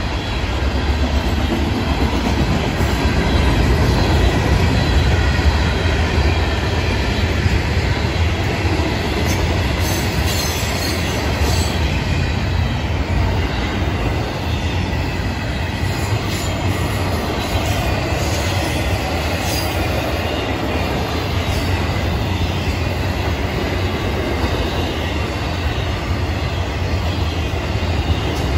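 A long Florida East Coast Railway freight train rolling past, a string of refrigerated boxcars and double-stacked intermodal container cars. It makes a steady, loud, deep rumble and rattle of steel wheels on the rails that goes on unbroken.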